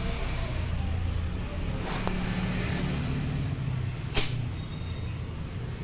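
Compressed air from a shop air line being blown into a scooter tyre to inflate it: short hisses of air, a sharp loud one about four seconds in, over a steady low hum.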